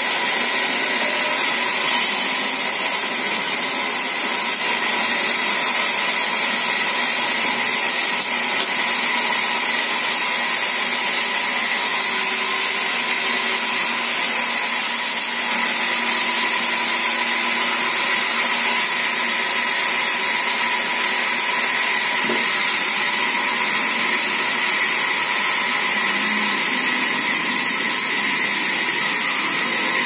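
Large sawmill band saw running steadily while wood is fed through its blade: a loud, unbroken sound with a strong high hiss.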